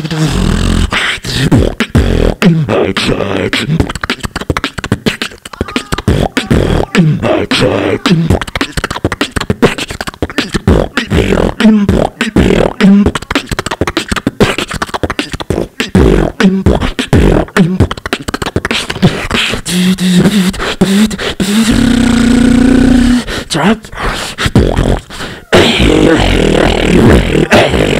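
Solo beatboxing into a handheld microphone and played through PA speakers: fast mouth-made kick, snare and hi-hat strokes over deep bass thumps. About three quarters of the way through, a low note is held briefly.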